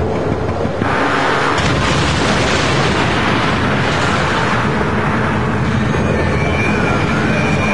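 Dramatized sound effect of an atomic bomb blast: a sudden swell of dense rumbling noise about a second in that stays loud and sustained, with steady tones joining near the end.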